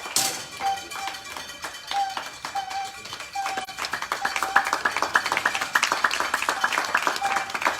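Spectators' cowbells ringing: one bell shaken in an uneven beat for the first few seconds, then a higher-pitched bell struck rapidly from about halfway through.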